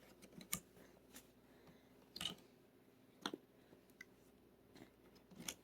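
Faint, scattered clicks and small taps of plastic wall-outlet safety plugs being handled by a baby, about seven in all, with the loudest about half a second in and around two seconds in.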